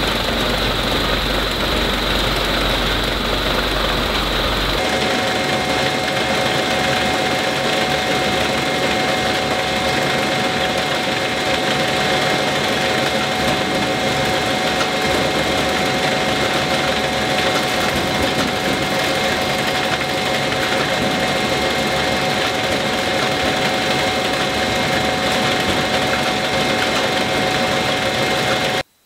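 Produce conveyor line running: a loud, steady mechanical whir with a constant motor whine. The whine changes pitch about five seconds in, and the sound cuts off abruptly near the end.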